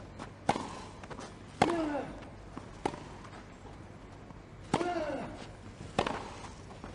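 Tennis rally on grass: the ball struck back and forth with racket hits about every second and a half. Twice a player lets out a short grunt falling in pitch on his shot.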